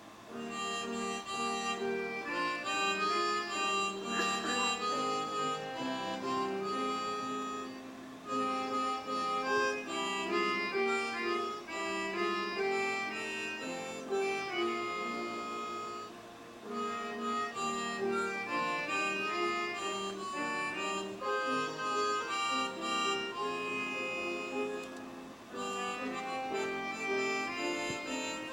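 Instrumental music without singing: a melody of held notes over accompaniment, in phrases that pause briefly about every eight seconds.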